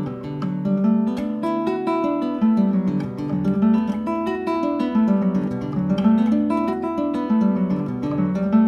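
Acoustic guitar played with a harp-imitation technique: a quick, continuous cascade of plucked notes that ring over one another, climbing and falling in pitch in repeated waves.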